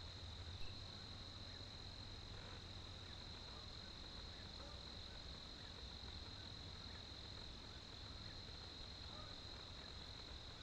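Faint night insect chorus: a steady, unbroken high-pitched trill, with a low hum underneath and a single soft tick just under a second in.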